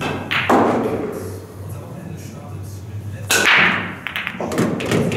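Two swoosh sound effects about three seconds apart, each with a sudden start and a fading tail, under a spinning title animation. Near the end come a few short clicks of pool balls.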